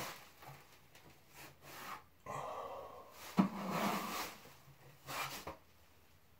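Drywall knife spreading joint compound over a ceiling patch: a series of scraping strokes, each a second or less, with short pauses between.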